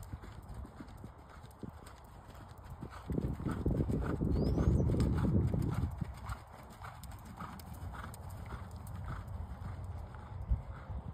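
Hoofbeats of a ridden horse trotting, a steady rhythm of about two to three footfalls a second. A louder low rushing noise swells in for about three seconds in the middle.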